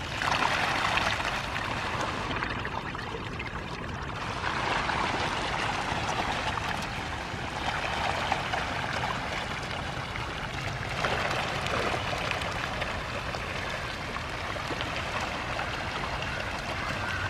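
Water splashing and churning as a mass of hybrid magur catfish feeds at the pond surface on floating pellets. It is a continuous watery sound that swells and eases several times.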